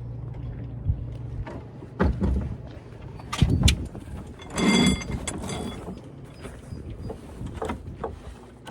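Scattered knocks and thumps of deck gear being handled aboard a small sailboat under sail, with one louder creaking squeal about halfway through.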